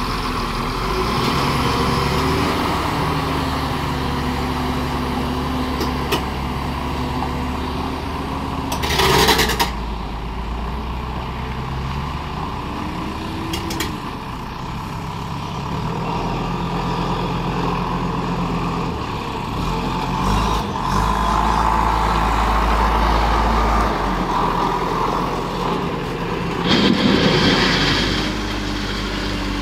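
Diesel engine of a loaded BharatBenz 2523 6x4 tipper truck pulling away and climbing, its pitch stepping up and down through the gears. Two short, loud hisses cut in, about nine seconds in and again near the end.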